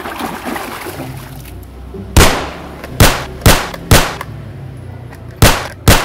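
Water sloshing as hands swish through a tub. Then, from about two seconds in, a plastic toy pistol fires six sharp gunshot sound effects in uneven groups, each dying away quickly.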